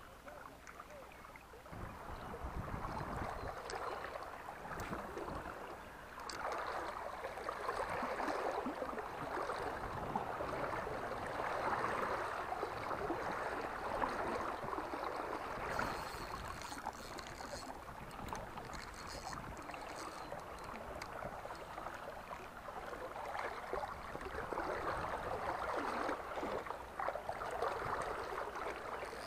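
River current gurgling and splashing close by, as water flows around a wading angler's legs, rising and falling unevenly.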